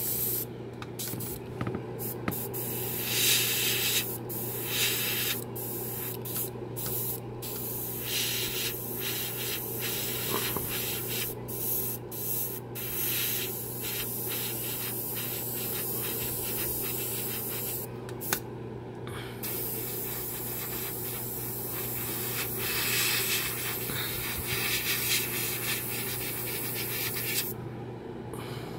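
Airbrush spraying paint in repeated short bursts of hiss that start and stop sharply, over a steady low hum.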